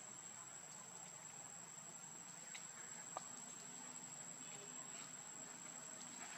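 Insects droning in a steady high-pitched tone, with one short sharp tick about three seconds in.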